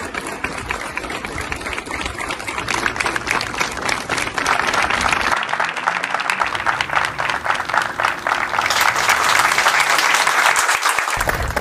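Many people applauding together, dense steady clapping from a crowd, which grows louder in the second half.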